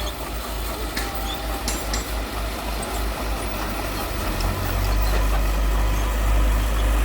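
Heavy diesel earth-moving machinery running, a deep engine rumble that grows louder about five seconds in, with a couple of light knocks early on.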